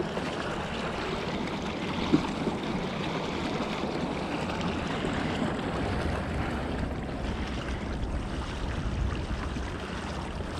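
Steady splashing and lapping of water against a kayak's hull as it moves along, with one sharp knock about two seconds in.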